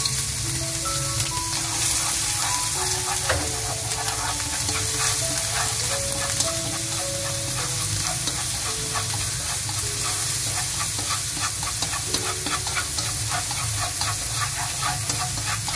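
Minced garlic and shallots sizzling in hot oil in a wok, being fried until golden, with a steady hiss and many small crackles and taps as wooden chopsticks stir them around the pan.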